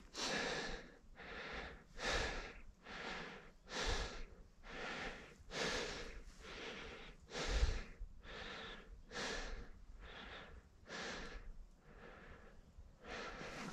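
A man breathing hard and fast close to the microphone, about one breath a second, as he pushes on through thick brush. There are two low thumps, about four and seven and a half seconds in.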